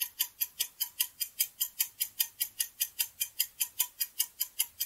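Clock-ticking sound effect for a countdown timer: short, even ticks at about five a second, marking the seconds running out to answer.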